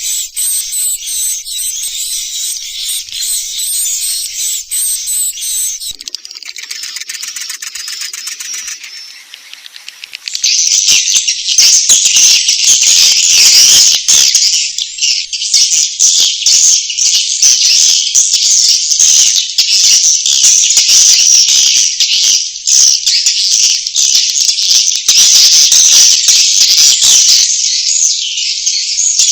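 Edible-nest swiftlets' roosting chatter, a 'suara inap' lure recording of the kind used to draw swiftlets to roost: dense, high-pitched twittering and chirping. It drops quieter with a finer buzzing texture about six seconds in, then comes back louder and denser around ten seconds in.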